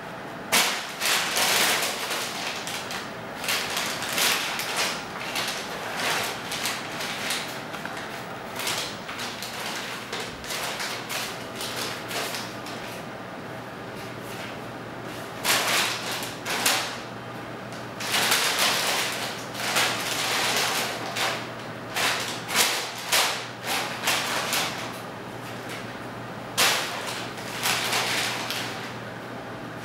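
Brown paper bag crinkling and scraping on the floor in irregular bursts as a cat moves about underneath it and another cat paws at it. A faint steady low hum joins about a third of the way in.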